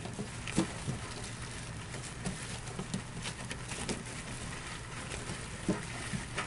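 Light rustling and scattered small clicks and knocks as a foil-jacketed flexible return air duct is worked onto the sheet-metal collar of a return air box, over a steady low hum.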